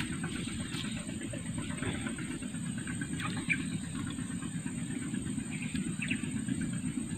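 Outdoor marsh ambience: a steady low rumble, like wind on the microphone, under a constant high-pitched drone, with a few faint short chirps.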